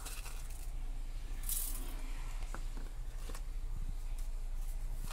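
Cumin seeds sprinkled by hand into a stainless steel mixer-grinder jar of coconut pieces and green chilli: a brief hiss of falling seeds about a second and a half in, then a few faint ticks.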